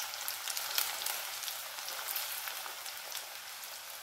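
Washed elephant yam (chena) pieces deep-frying in hot oil in a steel kadai. A steady sizzle is dotted with many small pops and crackles as the moisture in the yam spits in the oil, easing off slightly toward the end.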